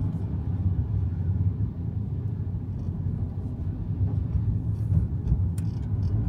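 Cabin noise of a BMW X1 on the move: a steady low rumble of road and engine noise heard from inside the car, with a couple of faint clicks about five and a half seconds in.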